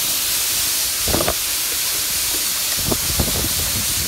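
Steady hiss on a phone's microphone outdoors in snow, with a few soft crunches in the snow about a second in and again near three seconds in.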